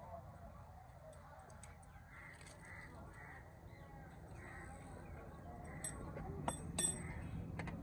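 Faint repeated cawing of crows, several calls about half a second apart, with a few sharp clicks near the end.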